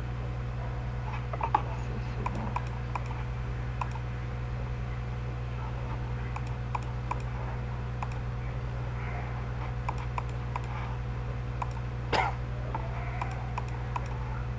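Computer mouse clicking, scattered single clicks, over a steady low hum. One louder short knock comes near the end.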